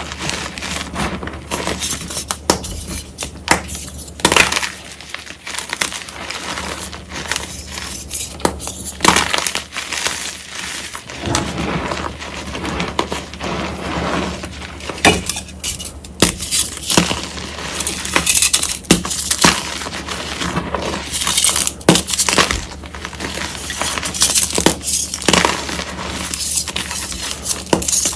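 Heart-shaped blocks of gym chalk being crushed by hand, crunching and crumbling into loose chalk powder that is squeezed between the fingers. A dense, irregular run of sharp crunches and crackles.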